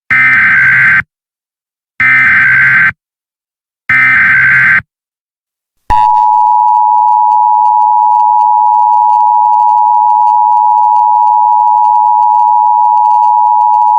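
Emergency Alert System SAME header: three one-second bursts of buzzing data tones, followed about six seconds in by the steady EAS attention tone, a two-tone alarm of 853 and 960 Hz.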